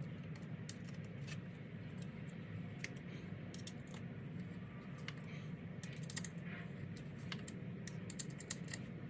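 Light, irregular clicks and taps of small hardware and hand tools being handled during an installation, over a steady low hum.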